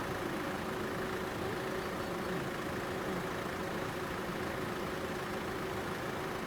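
An engine idling steadily, a low even running sound with a faint steady hum.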